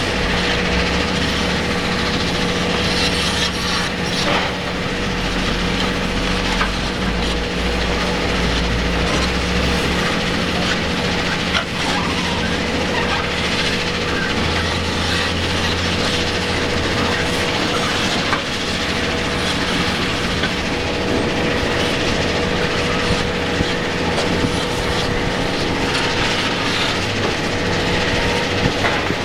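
Rock crushers running with a steady mechanical hum and constant clatter, mixed with the Cat 345DL excavator's diesel engine working under load as it climbs the stockpile. The engine's low rumble rises and falls in stretches.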